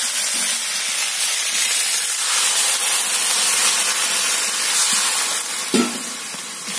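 Water poured from a steel mug into a hot aluminium kadai of vegetables frying in mustard oil, hissing and sizzling loudly as it hits the oil. The hiss eases off near the end, with a light knock.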